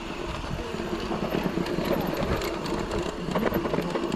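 Mountain bikes rolling slowly over a rough track: a steady run of rattles and quick ticks over a steady low hum.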